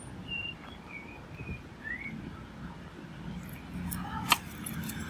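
A few faint, short bird chirps, one rising in pitch, over a steady low hum, with one sharp click about four seconds in.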